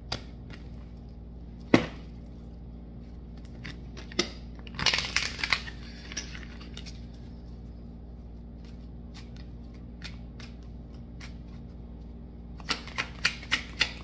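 A deck of cards being picked up and shuffled by hand: a sharp tap a little under two seconds in, a short burst of rustling shuffling around five seconds, scattered light clicks, then a quick run of card clicks near the end.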